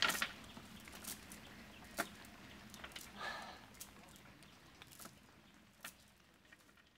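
Scattered light clicks and taps as a wet cast net and its chain of sinker weights are handled against a boat's bamboo slats, the sharpest right at the start and about two seconds in. A short animal call sounds in the background about three seconds in.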